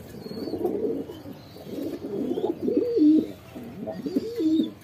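Domestic pigeons cooing: a string of low, rising-and-falling coos one after another, loudest about three seconds in.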